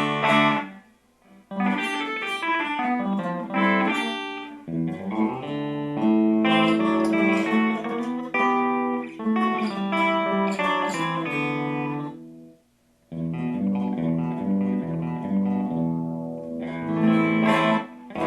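Hand-built solid-body electric guitar with flame maple top and mahogany body, played through a Fender Blues Junior amp with the bridge humbucker split to single coil, giving a brighter tone. It plays picked notes and chords, with two short breaks, about a second in and about two-thirds of the way through.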